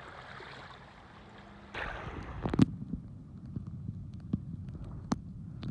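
Faint outdoor hiss of wind and water at the shoreline; about two seconds in it turns to the muffled low rumble of shallow water heard from underwater, with scattered clicks and knocks, one loud knock about halfway through.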